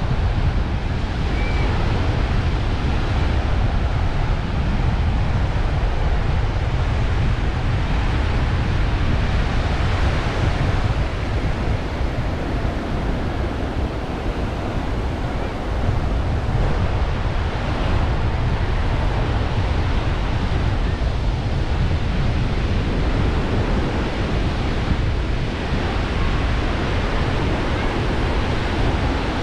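Ocean surf washing onto a sandy beach in a steady wash of noise, with wind buffeting the microphone and adding a low rumble.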